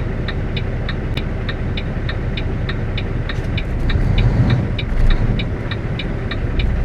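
Inside a semi truck's cab, the turn-signal flasher ticks steadily, about three times a second, over the diesel engine idling while the truck waits to pull out. The engine rumble grows louder about four seconds in.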